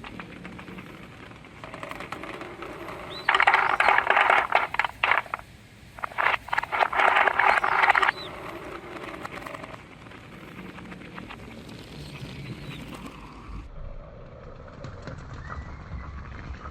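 Balls rolling through a corrugated plastic bellows hose, a dense rapid rattling in two loud runs of about two seconds each with a short break between, over quiet outdoor background.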